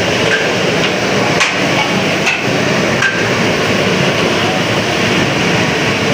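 Busy street-food stall din: a steady wash of street noise and voices, with a few sharp metallic clinks of serving utensils at roughly one-second intervals in the first half.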